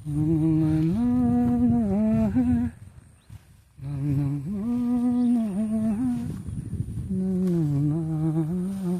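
A person humming a slow tune with closed lips: three phrases of held, stepping notes with short pauses between them.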